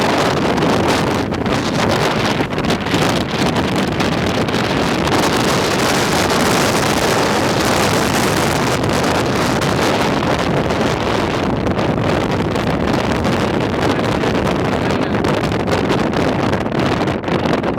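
Strong wind blasting across the microphone: a loud, steady rush and rumble of wind buffeting.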